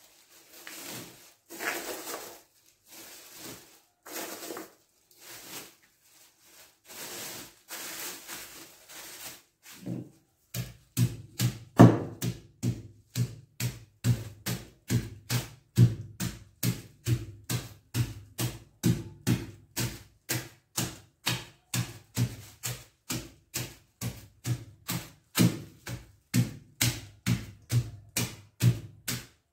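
A plastic bag of garlic cloves rustles as it is handled, then a wooden pestle pounds the garlic through the bag from about ten seconds in. The blows come steadily, about two a second, crushing the cloves to loosen their skins before sun-drying.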